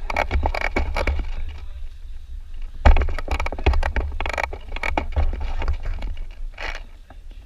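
Rustling and scraping with irregular knocks over a low rumble, typical of gear and handling noise on a camera carried by a moving player. A sharp knock about three seconds in is the loudest sound.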